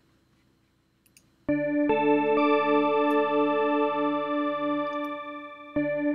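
Synthesizer pad playing a held chord: its notes come in one after another about a second and a half in, and the sound pulses evenly from an LFO. The chord fades, then is played again near the end.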